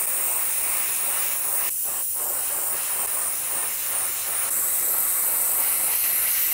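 Airbrush spraying paint: a steady, high hiss of air and paint mist, broken by two short gaps about two seconds in and a little louder from about halfway through.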